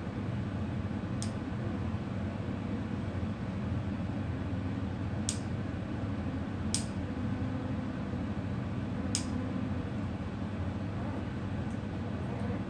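Small nail clipper snipping through a Doberman puppy's claws: four sharp, short clicks spaced a few seconds apart, over a steady low background hum.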